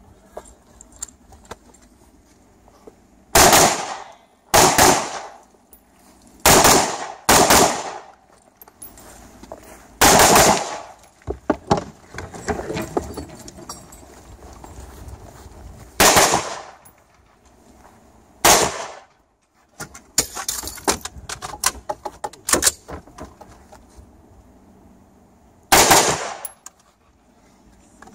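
Rifle shots, about nine loud ones, some fired in quick pairs, with pauses of a few seconds between groups and lighter clicks and clatter in between.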